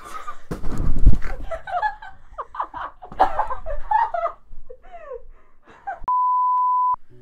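A single steady electronic beep lasting just under a second near the end, the kind of tone used to bleep out a word. Before it come a loud low rumble about a second in and some unclear voices.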